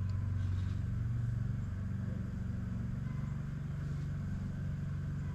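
Steady low fan hum from a 400-watt electric heater running on a 1000-watt power inverter under load.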